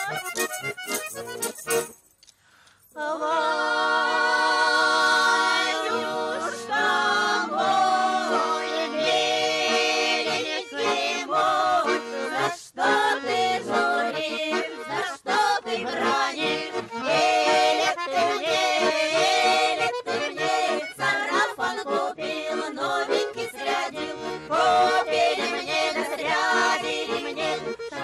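Bayan (Russian button accordion) playing a lively folk tune, with voices singing along. The music breaks off briefly about two seconds in, then starts again.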